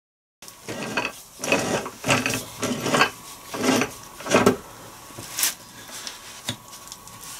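Cloth rag rubbed over a Land Rover R380 gearbox casing in a run of loud back-and-forth strokes, about two a second, followed by fainter rubbing and a single light knock near the end.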